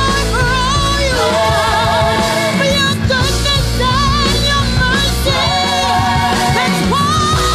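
A recorded Christian praise song playing: a woman's lead voice sings a melody with vibrato over a full instrumental backing with a steady bass line.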